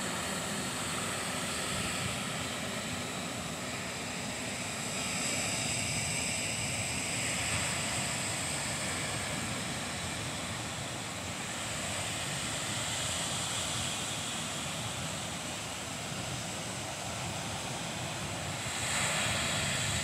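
Ocean surf breaking on a sandy beach: a steady rushing wash that swells a little louder as each wave comes in, most clearly near the end.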